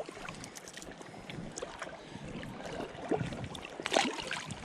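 Creek water running and splashing, with scattered small clicks and a louder knock about four seconds in.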